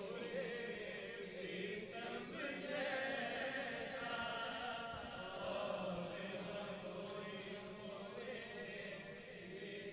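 A group of men's voices chanting softly and continuously, a wavering backing drone that fills the pause between lines of a naat recitation.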